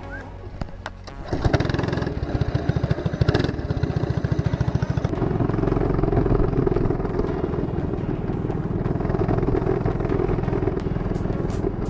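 Lawn mower engine on a home-built go-kart, running low at first, then opening up about a second in and running hard and steady with a fast pulsing beat as the kart drives.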